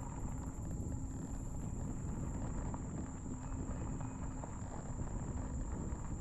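Wind rumbling on the microphone and fat tyres rolling on pavement while riding an electric bike, with scattered small knocks from the bike and a steady high thin tone throughout.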